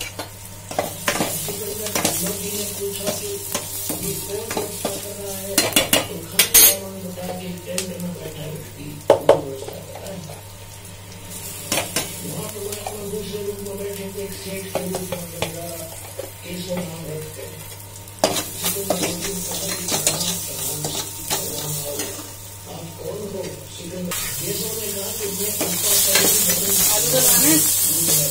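Sliced onions and green chillies frying in a steel wok, sizzling, while a metal spatula stirs them with frequent scrapes and sharp knocks against the pan. The sizzle grows louder and hissier near the end, when chopped tomatoes go into the pan.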